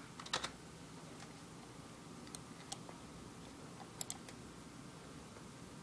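A few faint, scattered clicks of computer keys over quiet room tone.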